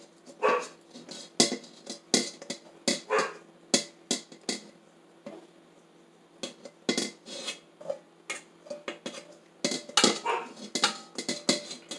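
Rubber spatula scraping and knocking against the inside of a stainless steel mixing bowl in irregular strokes as wet batter ingredients are scraped out.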